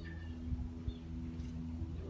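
Baby chicks peeping briefly, once just after the start and faintly again about a second in, over a steady low hum, with a few soft thumps.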